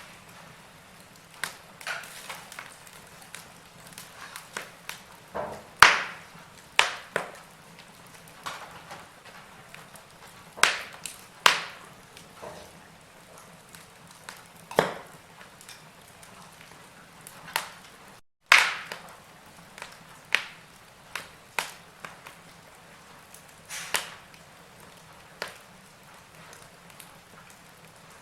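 Wood logs burning in a fireplace, crackling with irregular sharp pops and snaps over a soft hiss. The sound cuts out for a split second about two-thirds of the way through.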